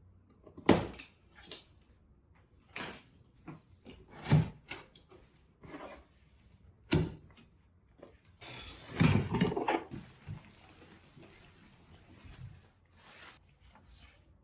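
Scattered knocks and clatter of objects being handled and set down, with a longer rubbing or sliding sound around nine seconds in.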